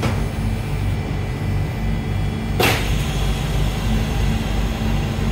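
Endeavour diesel railcar's passenger door sliding open at a station stop, with a short sharp hiss about two and a half seconds in, over the steady low hum of the railcar's idling diesel engine.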